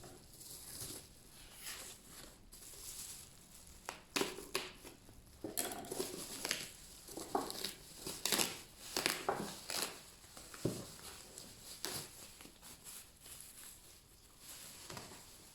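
Packaging and a box being handled and torn open by hand: irregular crinkling, crumpling and tearing noises.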